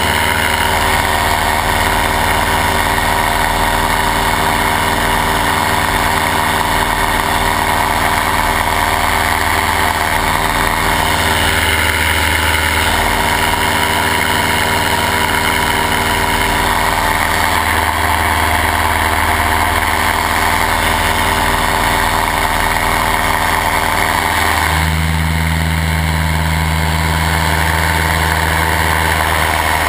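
Paramotor engine and propeller running steadily in flight, its note shifting slightly about ten seconds in and again near the end.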